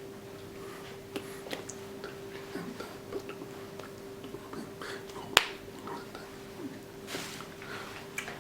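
Scattered small clicks and taps over a steady electrical-sounding hum, with one sharp, louder click about five seconds in.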